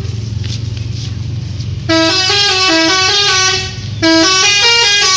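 Tour bus's 'telolet' multi-tone musical horn playing a short tune of stepped notes twice: first from about two seconds in for nearly two seconds, then again for about a second near the end. Under it the bus engine runs with a steady low hum.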